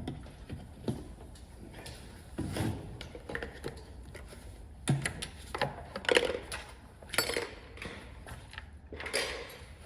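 Scattered light clanks and clicks of tools and parts being handled on a workbench or engine bay, a few seconds apart, over a faint low background hum.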